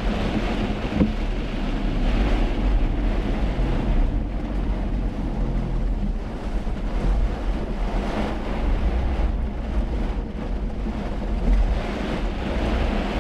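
Steady noise of a car driving in heavy rain: rain and tyres on the wet road over a constant low rumble.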